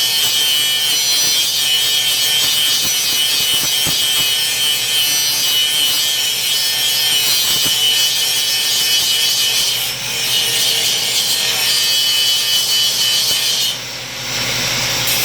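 Bandsaw cutting and throwing sparks: a loud, steady hiss with a high whine, with a brief dip about two-thirds of the way in. Near the end the cutting sound stops and only the lower running sound of the saw is left.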